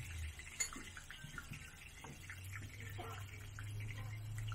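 Scallion pancakes sizzling in oil on a round griddle, a soft steady hiss with a few light clicks, over a low steady hum that grows stronger about two seconds in.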